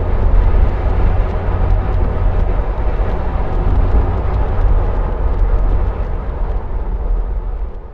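Jeep Wrangler Unlimited driving steadily on a paved road: engine and road noise with a heavy low rumble, fading out near the end.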